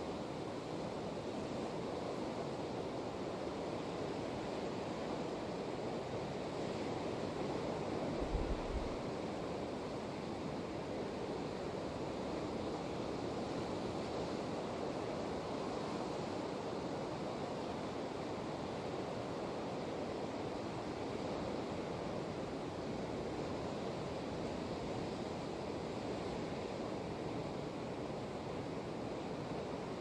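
Ocean surf breaking on the rocks below a sea cliff, heard as a steady, even wash. About eight seconds in there is a brief low thump, likely wind buffeting the microphone.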